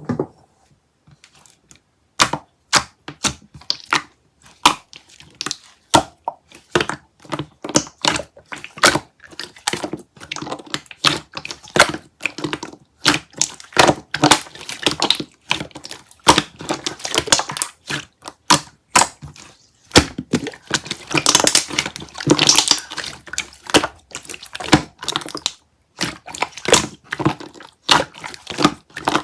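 Hands squishing and mixing slime, making a fast, irregular run of crackling pops and clicks. It starts about two seconds in and gets densest about two-thirds of the way through.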